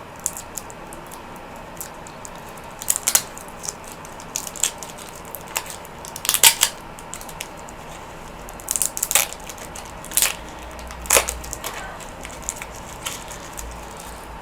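Rustling and crinkling from handling a bundle of Pokémon trading cards and its packaging, in a string of short, irregular crackly bursts with a few low bumps around the middle.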